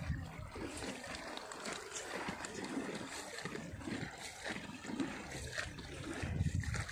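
River water lapping and trickling around a bamboo coracle, with a few light rustles of newspaper wrapping.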